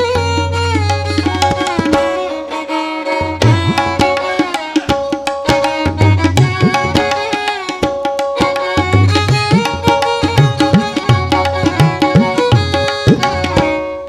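Tabla playing a steady rhythm of sharp strokes, with deep bass-drum notes that bend in pitch. Over it a sustained melody slides between notes.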